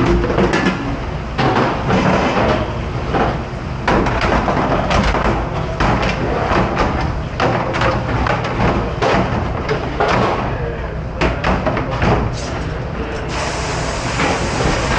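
Plastic dish racks and trays knocking and clattering on a stainless-steel dish-pit counter, over a steady low machine hum. About 13 seconds in, a hose sprayer starts hissing.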